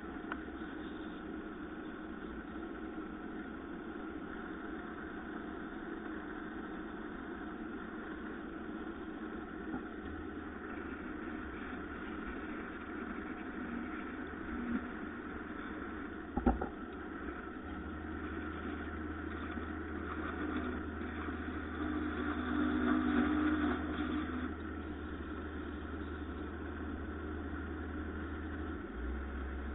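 Wood lathe's electric motor running with a steady hum. There is a single sharp knock about sixteen seconds in, and the sound grows a little louder for a couple of seconds past the middle.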